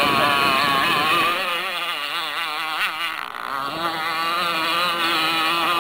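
RC racing catamaran's two-stroke engine with tuned exhaust pipe running at high revs as the boat speeds across the water, its pitch wavering continuously, dipping slightly in loudness about three seconds in.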